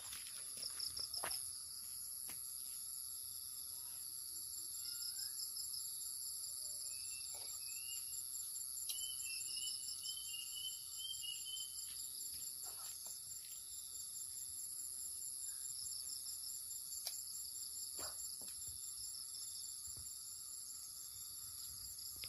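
Dusk chorus of insects: several steady, high shrill drones, some of them pulsing rapidly, with a short run of bird chirps in the middle and a few faint knocks.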